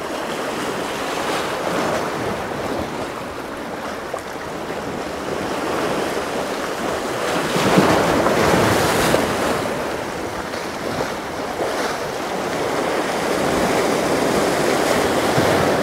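Waves washing against the jetty, a steady rush that swells about halfway through and again near the end, with wind on the microphone.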